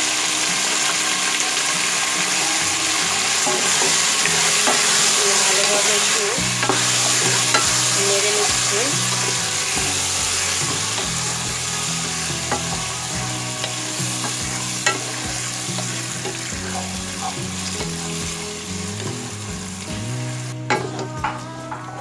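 Raw beef pieces sizzling in hot oil with fried onions in a pot while a spatula stirs them, with scattered clicks and scrapes against the pot. The sizzle is strongest at first, then slowly eases and drops away near the end.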